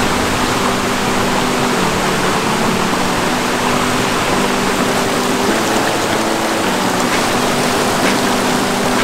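Rushing water of a small rocky forest stream, cascading and splashing over boulders in a steady wash of sound.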